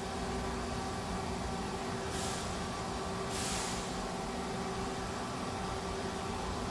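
Steady mechanical hum with a few fixed tones, like a fan or air conditioner running, broken by two short bursts of hiss about two and three and a half seconds in.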